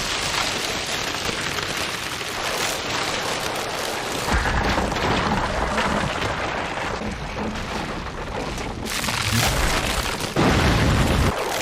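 Anime sound effects of a Wood Style jutsu, a mass of trees bursting up: a continuous dense rumbling crash, with a heavy low boom building about four seconds in and sudden louder surges near the end.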